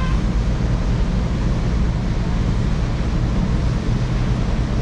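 Steady wind rush on the microphone over a low, even rumble, on the open deck of a ferry underway, with boat engines and wake water in the mix.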